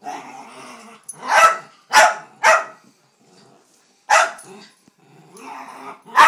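Dachshund barking at a vacuum cleaner: five sharp barks with short pauses between them. A low growl fills about the first second, and comes again just before the last bark.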